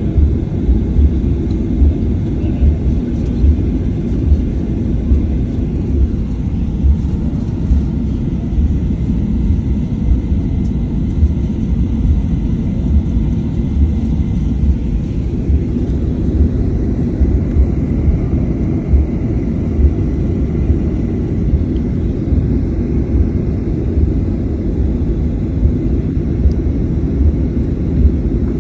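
Steady low rumble of a Boeing 737-800 heard from inside the cabin, its CFM56-7B jet engines running, with frequent small thumps throughout. A faint steady high whine comes in about halfway.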